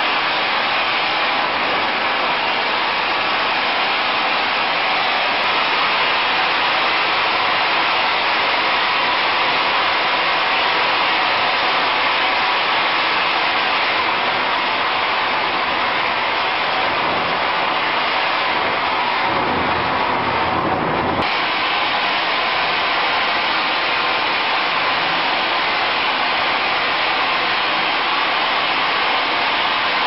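Air-powered industrial vacuum system running steadily with a loud, even rush of air, drawing sump water and slurry through its hose. About two-thirds of the way through, a deeper rush swells for a couple of seconds and then cuts off suddenly.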